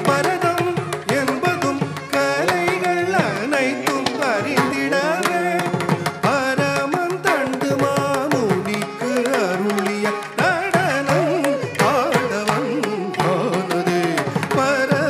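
Carnatic music: a voice sings winding, gliding melodic lines over quick, regular strokes of a hand drum.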